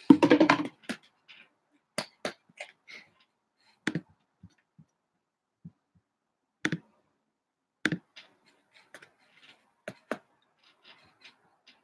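A short voice-like sound at the very start, then about a dozen sharp, light clicks and taps at irregular intervals from hands handling small things at a table.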